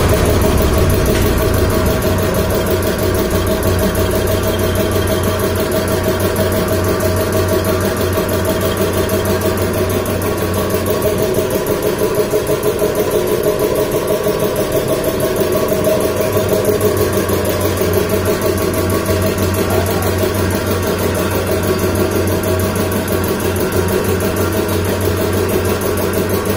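Belt-driven piston air compressor running steadily: the electric motor and pump head keep up a fast, even pulsing beat from the pump strokes.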